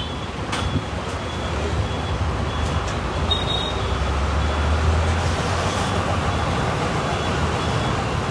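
Steady road traffic noise with a low rumble that swells for a moment partway through, as a vehicle passes.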